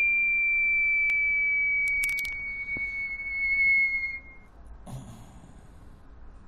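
A high, steady whistle-like tone that glides slowly down in pitch for about four and a half seconds, then stops. A few sharp clicks come about two seconds in, and a brief scuff near the end.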